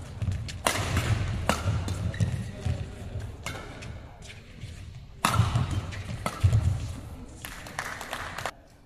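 Badminton rally: sharp cracks of rackets striking the shuttlecock, with players' feet thudding on the court in a large sports hall. The hits stop and it goes quiet near the end as the rally ends.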